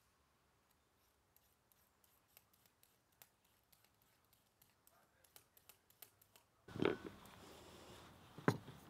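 A vegetable peeler shaving a cucumber into ribbons, making faint, irregular clicks with each stroke. About two-thirds through, a louder background hiss comes in, and there are two sharp knocks as celery stalks are handled on a wooden cutting board.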